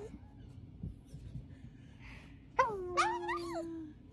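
A puppy's whining howl. About two and a half seconds in a loud cry starts high, drops, and holds a steady note for about a second, with a second wavering cry over it.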